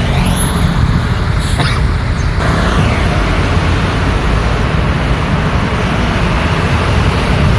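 Busy road traffic: a steady rumble of passing vehicles' engines and tyres, with a short sharp click about one and a half seconds in.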